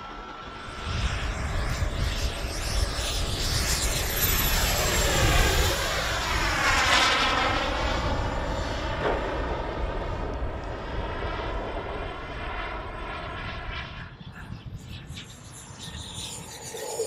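Small gas-turbine engine of a large-scale RC jet, rising to full power about a second in and running loud as the jet goes past, with a sweeping, phasing sound as it passes. The sound drops near the end to a quieter, unsteadier turbine noise.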